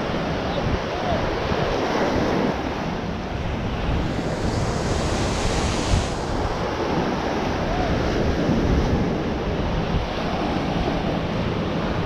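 Small ocean waves breaking and washing up the sand, a steady hiss of surf, with wind buffeting the microphone. The wash swells louder and brighter about four seconds in, then falls back.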